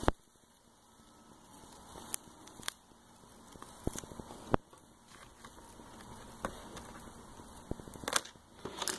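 Soft crackling and scattered sharp clicks as a paper backing sheet is slowly peeled off a vinyl decal held on transfer tape.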